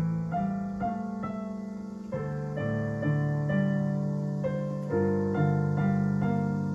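Piano played at a slow, gentle pace: held bass notes under a melody, each note left to ring and fade.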